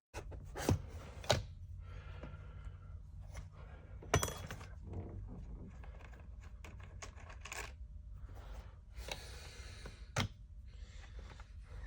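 Hands working with tools and small hard parts: sharp clicks and knocks, four of them standing out, scattered among softer rustling and scraping over a low steady hum.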